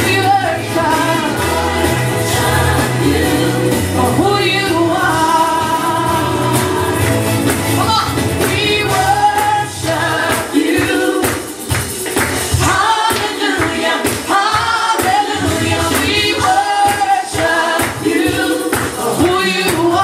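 A woman singing a gospel worship song into a handheld microphone over backing music. The low bass part turns choppy about halfway through.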